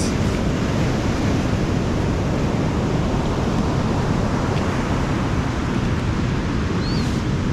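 Ocean surf breaking and washing up a sandy beach: a steady, heavy rush of water noise.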